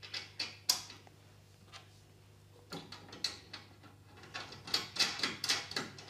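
Light metallic clicks and clinks of 5/16-18 bolts, washers and nuts being handled and fitted to a metal mounting bracket, coming in three irregular clusters.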